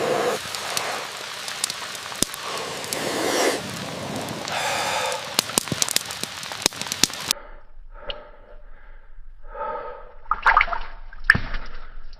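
Rain falling as a steady hiss with many sharp ticks and clicks. About seven seconds in it cuts suddenly to a run of short heavy breaths and gasps from a man at work, with a few sharp knocks.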